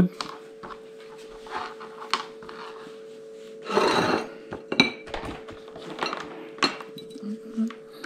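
Hands handling wire and metal hand tools on a tabletop: scattered light clicks and knocks, with a brief rustle about four seconds in, over a faint steady hum.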